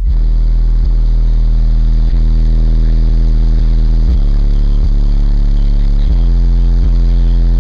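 High-powered car audio system with subwoofers playing a bass demo at very high volume inside the cabin: deep, steady bass notes that change every second or so.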